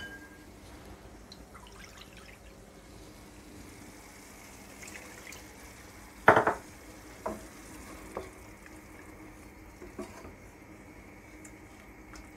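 Watered-down tomato-onion masala sizzling gently in a stainless steel pot as it comes up to the boil. A wooden spatula knocks against the pot a few times, the loudest knock about halfway through.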